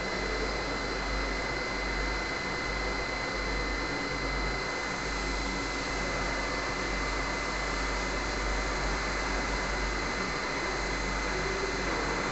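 CNC machine running steadily: an even mechanical noise with a thin high whine held on one pitch.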